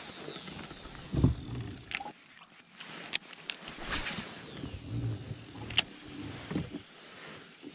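Handling noise from fishing out of a kayak: a baitcasting reel being cranked, with a few sharp clicks and dull knocks of gear against the kayak.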